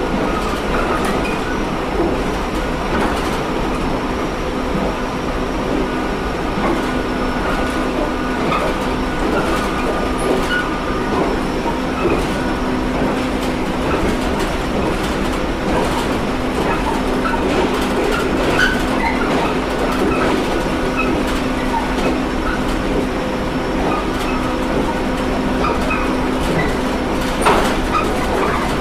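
JR Kyushu 713 series AC electric multiple unit running at a steady speed, heard from inside the car: a constant rumble of wheels on rail with a steady electrical hum and scattered faint clicks from the track.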